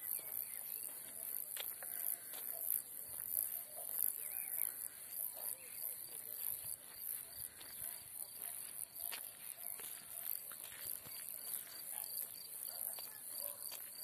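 Crickets chirping in the grass: a steady high-pitched shrill with a fast pulse that never stops.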